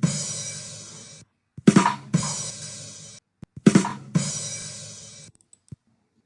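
'Ba-dum tss' rimshot sting on a drum kit, heard three times: two quick drum hits, then a cymbal crash that rings and fades over about a second.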